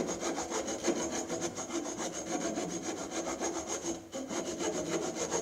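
Hacksaw cutting into a turned wooden workpiece with quick, even back-and-forth strokes, pausing briefly about four seconds in.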